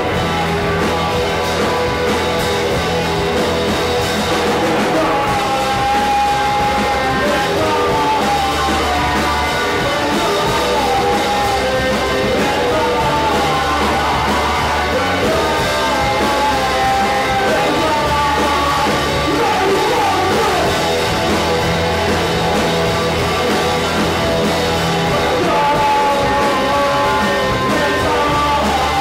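A live rock band playing electric guitars, bass and drums, with a male singer singing and yelling over them from about five seconds in.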